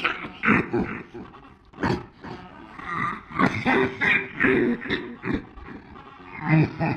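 A dog coughing over and over in short hacking bouts with brief pauses between them.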